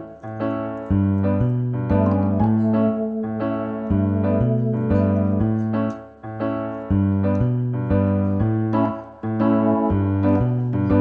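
Background piano music: chords over a low, stepping bass line, with short pauses between phrases.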